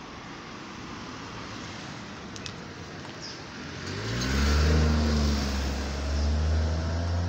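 Outdoor background noise, then about four seconds in a motor vehicle's engine comes close with a loud, low, steady drone that holds to the end.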